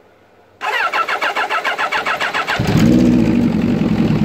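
Kawasaki GPZ 900's inline-four engine being cranked over by its electric starter, about six compression pulses a second, then catching about two seconds in and running loudly.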